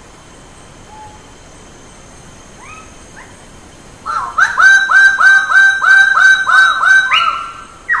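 Bird-of-paradise calling: a few faint calls, then from about four seconds in a loud, quick series of about ten short calls at roughly three a second, ending with one longer call.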